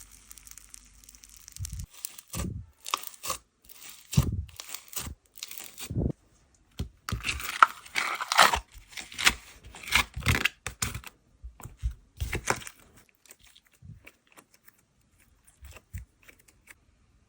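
Slime being stretched, folded and pressed by hand, giving an irregular run of crackles and pops that thins out to a few soft pops near the end.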